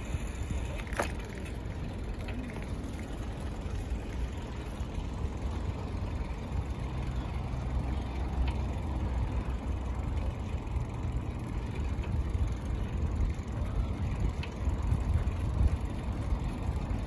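A steady low rumble from a bicycle riding along a paved bike lane: wind on the microphone and the tyres rolling on asphalt. There is one sharp click about a second in.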